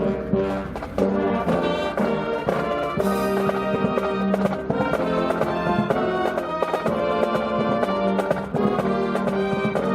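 Brass-led wind band playing, with many sustained notes and steady percussion strokes.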